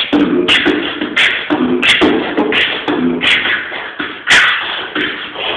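A man beatboxing with his hand cupped over his mouth: sharp snare-like hits about every two-thirds of a second, with short hummed tones between them.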